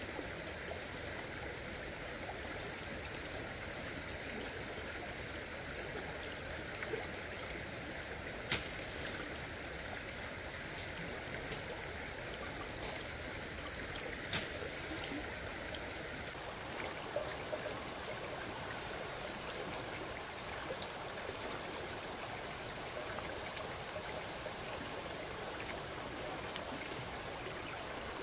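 Stream water running steadily, with a few sharp clicks scattered through.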